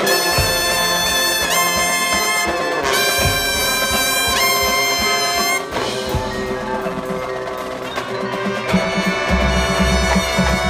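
Drum and bugle corps playing live on the field: the horn line holds loud brass chords with quick upward rips, over pit percussion with marimbas. About six seconds in the horns drop back, then swell again over a low pulsing drum beat near the end.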